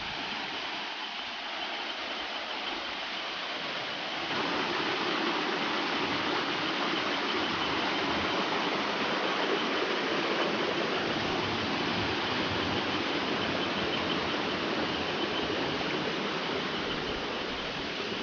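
Arinta Waterfall pouring down, a steady rushing of falling water that grows louder and fuller about four seconds in.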